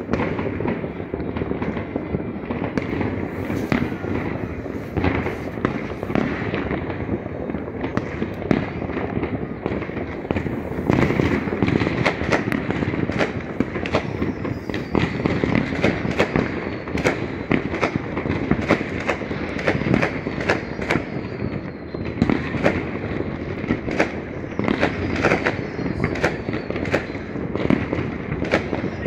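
Heavy, continuous fireworks: dense overlapping bangs and crackle from many rockets and firecrackers, with high whistles now and then in the second half.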